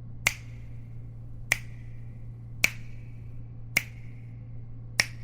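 Five sharp snaps at an even beat, about one a second, each with a brief ringing tail, over a low steady hum: the sparse opening beat of a pop track before the music comes in.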